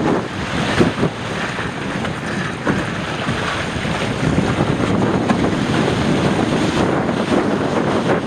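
Strong wind buffeting the microphone over water rushing and splashing around a Fireball sailing dinghy under way in gusty wind.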